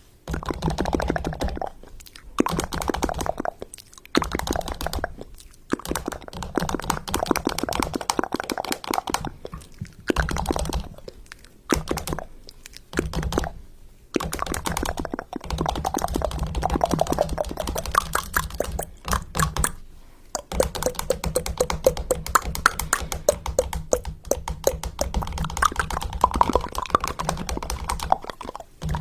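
A string of edited sound-effect clips, each a few seconds long, separated by brief breaks and full of rapid crackling clicks.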